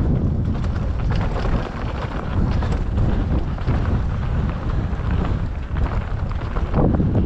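Wind buffeting the microphone of a camera riding on a mountain bike at speed down a dirt trail. Throughout, there is a loud rumble, with frequent short clicks and rattles from the bike and tyres over rough ground.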